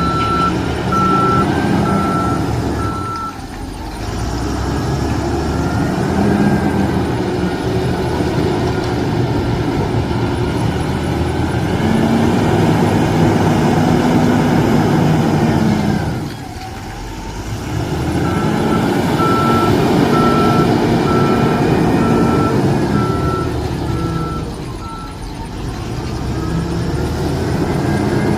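Wheel loader's diesel engine working under load, its pitch rising and falling through the loading cycles and easing off briefly three times. Its reversing alarm beeps steadily at the start and again from about two-thirds of the way through as the machine backs up.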